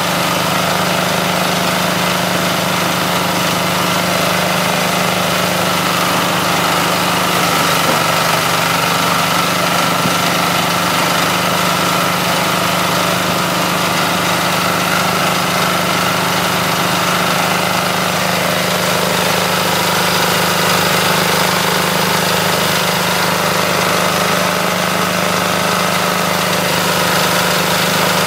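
Small single-cylinder engine powering a coconut-frond shredder, running steadily at a constant speed with no change in load.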